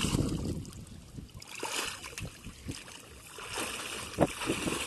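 Shallow water splashing and sloshing as people wade through a flooded paddy field and lower bamboo polo fish traps into it, with scattered sharp splashes from about a second and a half in and a louder one near the end. A low rumble of wind on the microphone comes first.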